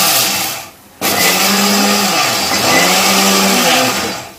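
Indian mixer grinder running with its stainless steel jar dry-grinding roasted gram, fennel and cumin seeds into powder, pulsed. The motor is switched off about half a second in, restarted about a second in, runs for some three seconds, and winds down near the end.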